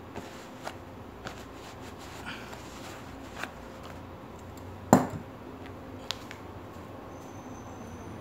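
Small metal clicks and ticks from handling a Leatherman Micra keychain multitool, with one much louder sharp click about five seconds in.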